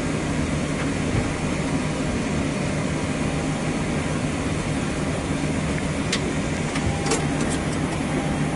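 Steady cockpit noise of a Boeing 737-800: a constant hum and rush from the running aircraft systems, with a few sharp clicks about six to seven seconds in.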